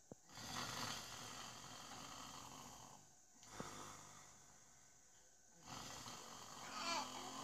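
An elderly man snoring in his sleep: three long noisy breaths, one about every three seconds.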